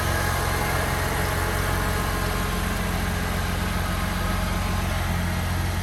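Holden Commodore VU's 3.8-litre V6, fitted with a custom exhaust, idling steadily.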